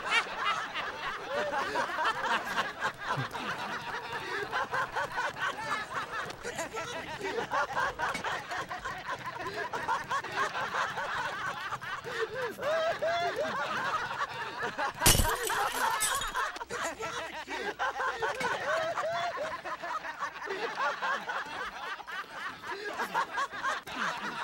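Men laughing and snickering, several voices overlapping the whole time, with a sharp crack about fifteen seconds in.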